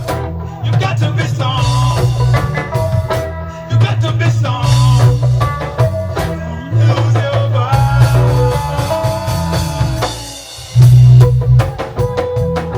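Reggae band playing a lovers rock groove, with a heavy bass line and drum kit. The bass drops out briefly near the end and comes back in.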